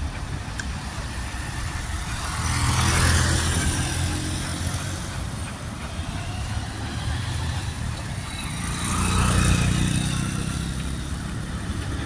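Road traffic passing on a street: steady engine rumble and tyre noise, with two vehicles swelling past, one about three seconds in and another about nine and a half seconds in.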